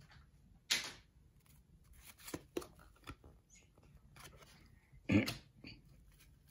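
Baseball trading cards being handled and sorted: a few short, scattered rustles and taps, the loudest a brief louder one about five seconds in.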